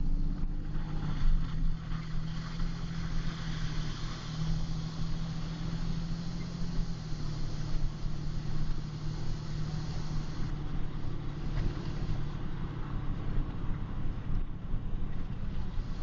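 Car being driven, heard from inside the cabin: a steady low engine drone under road and tyre noise, the hiss easing a little about ten seconds in.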